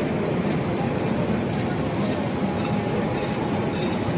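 Stationary electric locomotive with its pantograph raised, running with a steady, even whir.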